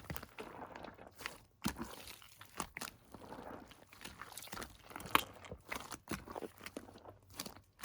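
Crunchy slime being mixed and squeezed, giving irregular crackles and pops with soft sticky noise between them.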